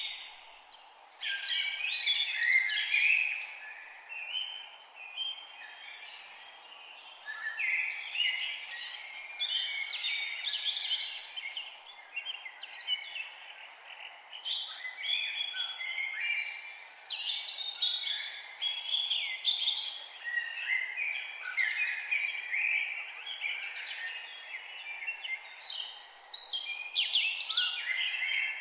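A chorus of many birds chirping and singing, their calls overlapping, over a steady low background noise. The singing thins out for a few seconds early on, then grows dense again from about seven seconds in.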